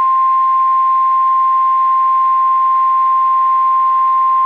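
NOAA Weather Radio warning alarm tone: one loud, steady 1050 Hz tone, the attention signal that comes before a new warning message is read.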